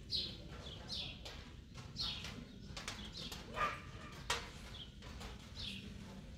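Small birds chirping repeatedly: short, high, falling chirps about once a second, with a couple of sharper, louder sounds near the middle.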